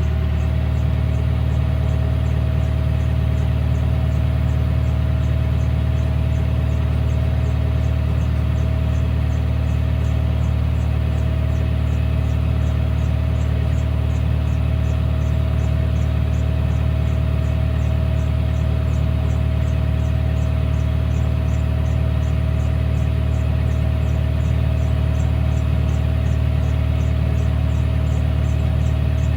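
Hitachi excavator's Isuzu 4HK1 four-cylinder diesel engine running steadily, with no misfire, after repair of its hard starting and misfiring. A faint high ticking about twice a second runs along with it.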